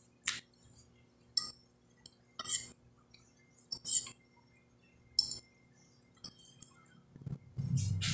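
Metal fork clinking and scraping on a glass plate in short, sharp strokes about a second apart, along with close-miked chewing. Near the end comes a longer, louder stretch with a low hum under it.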